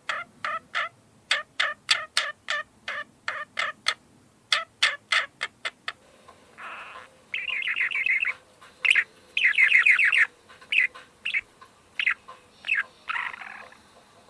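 Parakeet calling. For about the first six seconds it gives a fast, even run of short sharp chirps, about three a second. After that come longer chattering bursts of about a second each, mixed with a few single chirps.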